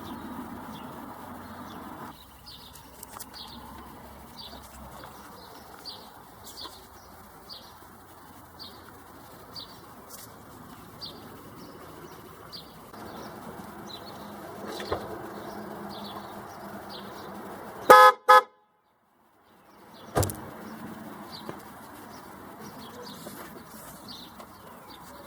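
Two short toots of a newly fitted aftermarket dual-tone (low and high) car horn set on a 2007 Jeep Compass, about eighteen seconds in. Under a quiet background, a high chirp repeats about every half second throughout.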